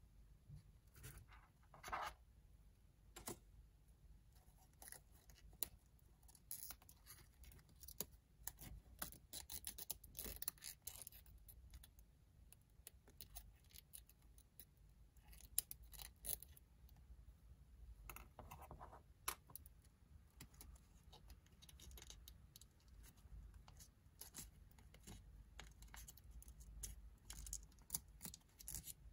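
Faint rustling, scratching and crinkling of origami paper as it is handled, opened out along its creases and folded by fingers, with scattered short creasing clicks that bunch up in a few busier spells.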